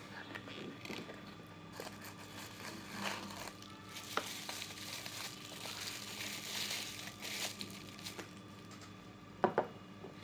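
Packaging crinkling and rustling as a parcel is handled and unwrapped, with scattered sharp clicks and a couple of louder knocks near the end.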